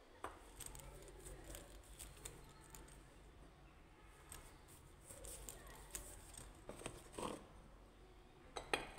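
Near silence in a small room, broken by scattered faint clicks and small handling noises.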